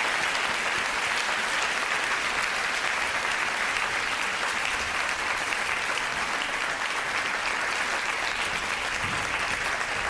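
Lecture audience applauding steadily, a dense even clapping that fades out just after the end.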